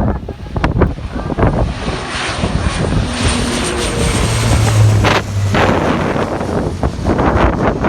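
Airplane flying low past, its engine noise swelling to a steady rush with a strong low hum in the middle, over wind buffeting the microphone.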